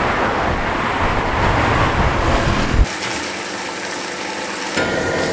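Road traffic going by for the first few seconds, then a sudden switch to tap water running steadily into a stainless steel pot of beans, which stops shortly before the end.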